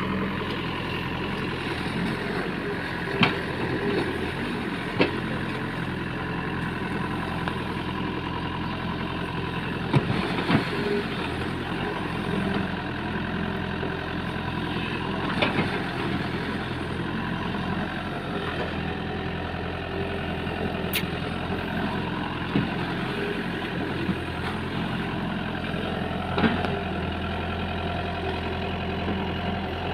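Heavy diesel machinery engine running steadily at an even speed, with a few sharp knocks and clanks scattered through.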